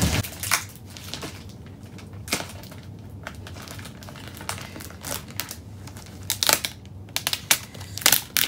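Clear plastic wrap crinkling and crackling as it is pulled and peeled off a cardboard box, in irregular crackles that come thicker near the end.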